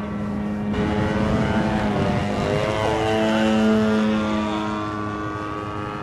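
Radio-control model airplane's engine running in flight overhead. It grows louder as the plane comes closer, peaks in the middle, then eases off near the end, and its pitch shifts partway through as the plane passes and manoeuvres.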